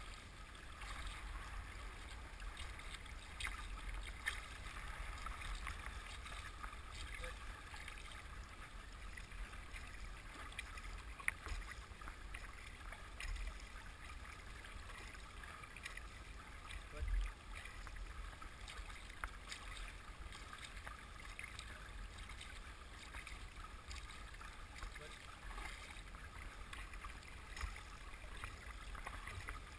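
River water rushing and splashing along the bow of a paddled boat moving down a fast spring current, with scattered small knocks and one louder low thump about seventeen seconds in.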